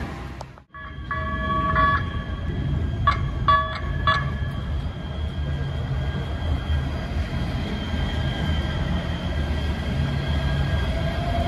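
LA Metro Rail Kinkisharyo P3010 light-rail train sounding its horn: one held note, then three short toots. It then rolls past with a low rumble and a steady high whine.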